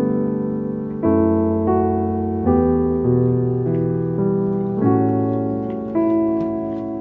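Background piano music: sustained chords under a slow melody, the chords changing every second or so.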